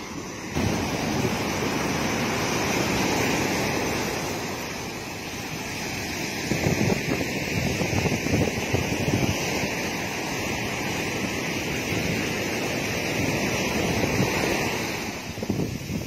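Ocean surf washing onto a sandy beach: a steady rush of broken waves. From about six seconds in, wind buffets the microphone.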